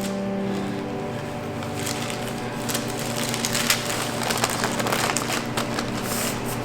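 Wax paper crinkling and rustling in irregular crackles as a sheet of cinnamon roll dough is rolled up on it, over a steady low hum of held tones.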